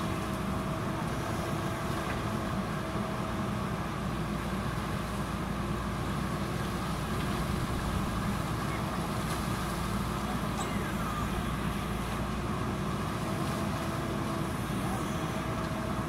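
JCB backhoe loader's diesel engine running steadily while the backhoe arm digs, with a faint steady whine over the engine.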